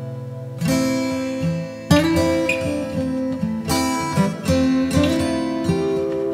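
Instrumental background music, slow and pitched, with new chords struck every second or two and left to ring out.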